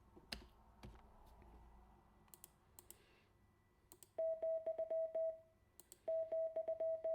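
A few soft computer keyboard clicks, then, about four seconds in, a computer-generated Morse code beep: one steady tone keyed rapidly on and off, sending the comma character. The sequence plays twice with a short pause between.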